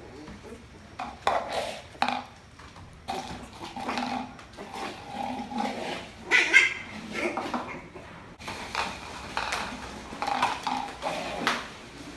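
Lhasa Apso puppy giving short yapping barks while a light plastic tub knocks and clatters across a hard floor as the puppy pushes and rolls it. The sharp knocks come irregularly throughout.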